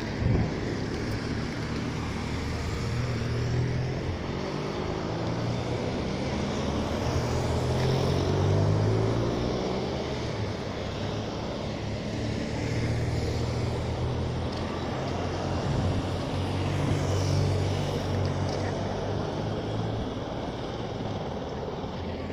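Race convoy cars and vans driving past one after another at low speed, a continuous engine hum that swells and fades as each vehicle goes by.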